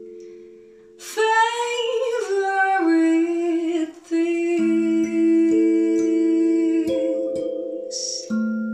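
Recorded music played through hi-fi loudspeakers in a small room: a singer holds a note with vibrato, then sustained orchestral chords follow with a few light struck notes.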